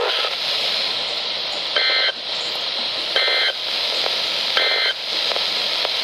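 Midland NOAA weather radio hissing with receiver static, then three short, buzzy two-tone data bursts about a second and a half apart. These are the Emergency Alert System (SAME) end-of-message bursts that close the tornado warning broadcast.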